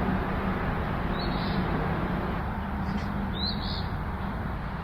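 A songbird repeating the same short, high call twice, about two seconds apart, over a steady rushing background noise.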